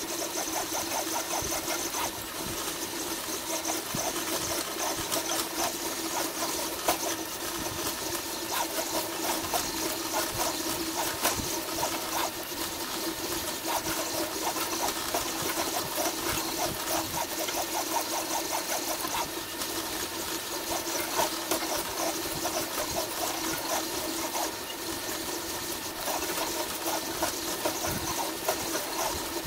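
Large-nozzle 3D printer running, its motors giving a steady whine with rapid, irregular ticking as the print head moves and extrudes plastic.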